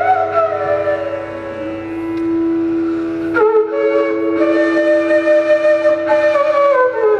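Two bansuri bamboo flutes playing a Hindustani classical duet. A long steady held note sounds beneath gliding, ornamented melodic phrases, and a new phrase comes in sharply about three and a half seconds in.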